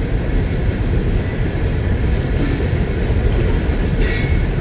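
CSX coke train freight cars rolling past, a loud steady rumble of wheels on rail, with a brief high-pitched sound about four seconds in.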